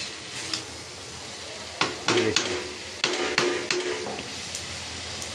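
Okra frying in a metal kadhai with a steady sizzle while a spoon stirs it, clicking and scraping against the pan several times around the middle.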